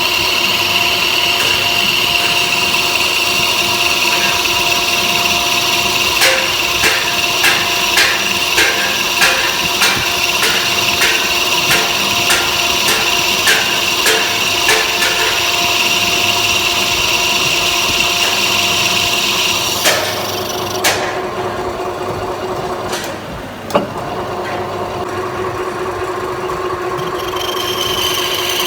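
Metal lathe running and cutting, with a steady high-pitched whine from the cut and regular ticks about twice a second for several seconds. About twenty seconds in the whine stops and two sharp knocks are heard, then the whine comes back near the end.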